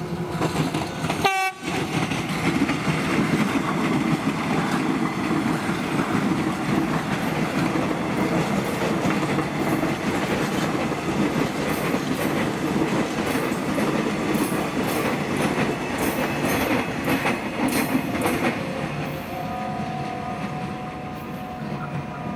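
KRL Commuter Line electric commuter train running past at speed, with a dense rushing clatter of wheels on the rails. There is a brief break in the sound about a second and a half in, and a faint steady tone returns near the end.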